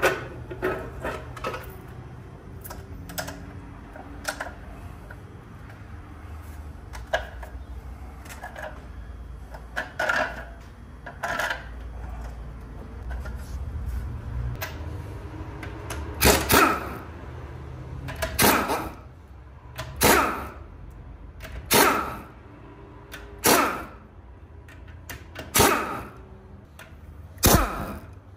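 Metal tools clinking and knocking on metal over a steady low hum; about halfway through, a run of heavier knocks sets in, roughly one every two seconds, each ringing briefly.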